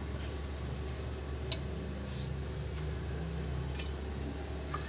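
Sharp metallic clinks of hand tools against steel, one loud clink about a second and a half in and fainter ones later, over a steady low hum.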